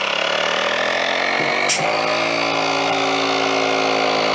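Small portable electric air pump running, forcing air into the end of a golf grip set to a 50 psi target. It makes a steady motor hum whose pitch sinks slightly over the first couple of seconds and then holds, with a single click under two seconds in. It cuts off suddenly near the end.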